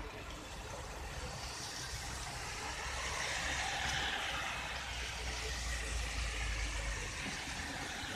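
Road vehicle noise: a low engine rumble with a hiss that swells over a few seconds and eases off near the end.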